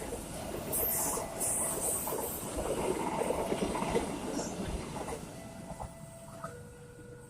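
Passenger train hauled by a CC 201 diesel-electric locomotive rolling past, its wheels clicking over the rail joints; the noise fades away after about five seconds. Near the end a steady tone comes in.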